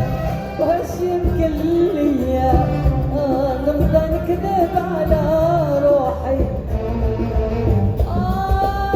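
Moroccan band playing an instrumental interlude of the song: a wavering, ornamented melody over a steady beat, with a new sustained note coming in about eight seconds in.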